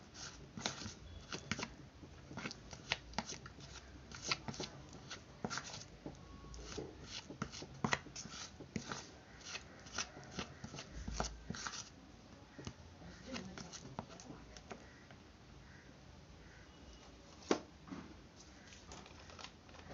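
Metal spoon stirring a thick paste in a small bowl, with quick scraping and clicking against the sides. The stirring stops about twelve seconds in, followed by scattered faint clicks and one sharp click a few seconds before the end.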